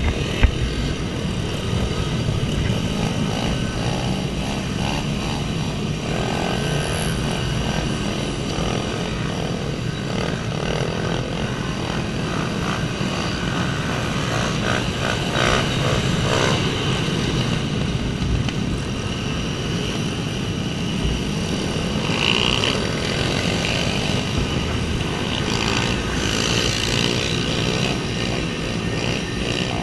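Pit bike engines, small single-cylinder motorcycles, running and revving, several at once, their pitches rising and falling across each other.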